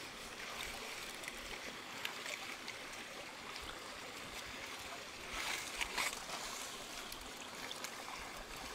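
Shallow stream water trickling and sloshing as hands stir through wet leaf litter on the stream bed, with small rustles and splashes. About five seconds in, a louder stretch of stirring.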